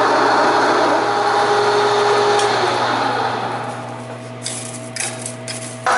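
Milling machine spindle driving a drill bit through a steel tube, a steady motor hum under the noise of the cut. The cutting noise fades over the second half, and a few short sharp metal clicks come near the end.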